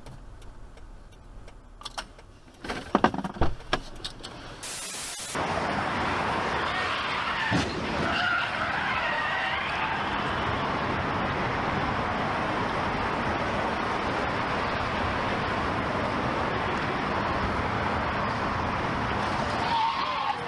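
A few sharp knocks, then from about five seconds in a loud, steady rush of car tires skidding, with squeals rising and falling in it.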